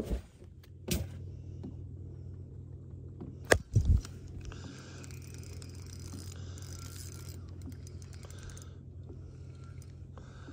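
A steady low electric hum from the bass boat's gear that sets in about a second in, with scattered clicks and two loud knocks about three and a half seconds in from the fish and tackle being handled on the boat.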